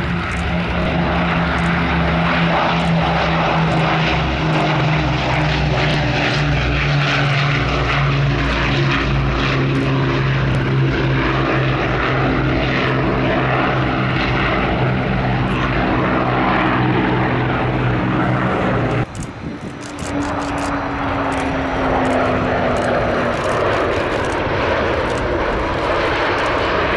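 Avro Lancaster's four Rolls-Royce Merlin V12 piston engines running in a steady, even drone as the bomber passes overhead. About nineteen seconds in the sound cuts briefly, then the jet engines of an RAF Sentry AEW.1 take over, with a tone slowly falling in pitch.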